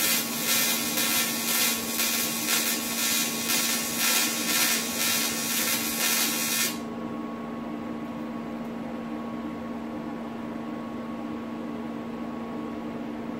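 Electric welding arc sizzling and crackling steadily as tubes are tack-welded into a metal box, cutting off abruptly about seven seconds in. A steady electrical hum carries on underneath throughout.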